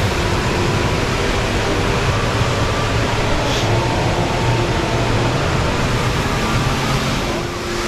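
Steady rushing roar of the Rain Vortex indoor waterfall carrying through the glass dome, with a faint low hum under it.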